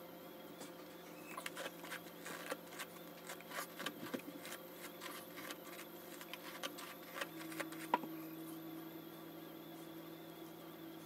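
Natural hair crackling and rustling as it is brushed with a bristle brush and pulled apart by fingers: a quick irregular run of small crackles and snaps that thins out after about eight seconds.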